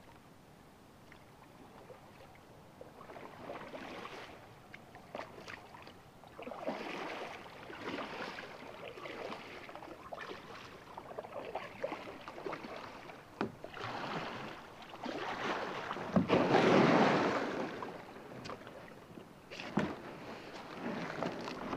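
Kayak paddle strokes splashing in a shallow creek, one every second or two, growing louder as the kayak comes closer, with a few sharp knocks between them; the loudest splash comes about two-thirds of the way through.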